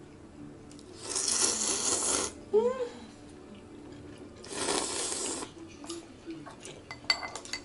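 A person slurping noodles with a loud suck, twice, each about a second long, followed by a few light clicks of chopsticks against a bowl near the end.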